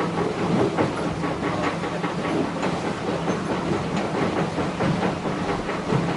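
Steady rush of water and wind aboard a yacht racing under sail, with many irregular small splashes and knocks.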